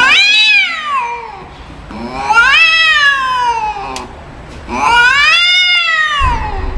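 Angry cat yowling: three long, drawn-out howls, each rising and then falling in pitch, with short pauses between them and another beginning right at the end.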